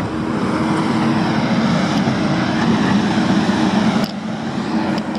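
Heavy construction machine's engine running steadily under load, a loud mechanical roar that dips briefly about four seconds in.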